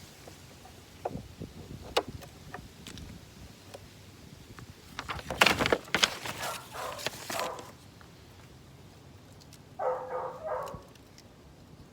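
Hand snips clicking as tape and wiring are cut on a Mercury outboard's harness, with a louder stretch of rattling and scraping from handling about halfway through. A dog barks twice near the end.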